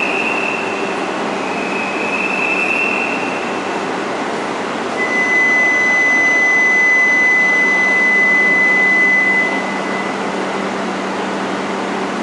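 E5 series Shinkansen train standing at the platform, its onboard equipment giving a steady rushing hum. Two short high whines sound in the first three seconds. About five seconds in, a louder steady high whine starts and stops after about four and a half seconds.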